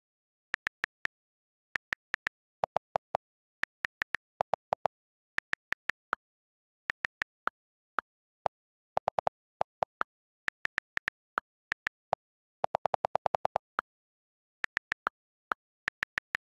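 iPhone on-screen keyboard clicks from typing, single taps in short runs with silence between them. Some taps have a lower, fuller click. About 13 s in comes a fast run of about a dozen clicks, which fits holding the delete key to erase a word.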